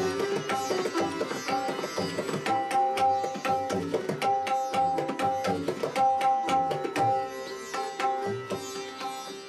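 Sitar and tabla playing together: a plucked sitar melody of ringing held notes over quick tabla strokes, easing off in loudness near the end.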